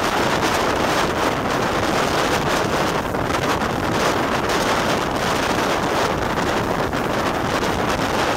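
Wind rushing over the microphone of a camera held out of a moving steam-hauled train, with the train's running noise beneath, steady throughout.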